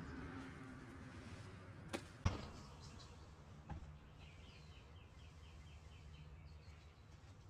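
Two sharp knocks about two seconds in, the second the loudest, and a softer knock just under four seconds. Over the low background, a bird gives a rapid trill of about ten short high chirps lasting two seconds, starting about four seconds in.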